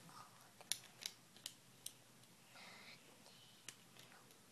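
Sharp little plastic clicks as Lego pieces on a small toy truck are handled and pressed together: four in quick succession about a second in, one more near the end, otherwise near silence.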